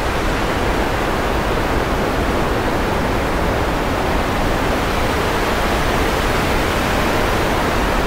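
Steady rushing synthesized noise, like pink noise, played back in a DAW as the raw material for a from-scratch ocean wave sound, full in the low end. It starts and cuts off abruptly.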